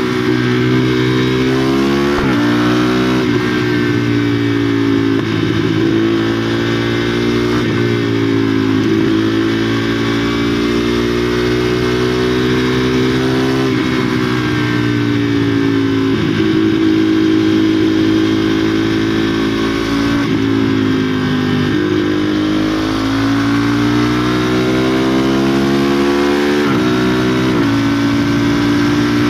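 KTM Duke 390's single-cylinder engine through a cat-less exhaust, heard onboard while riding: its pitch climbs under acceleration and falls away on the throttle, with several abrupt jumps in pitch as gears are changed.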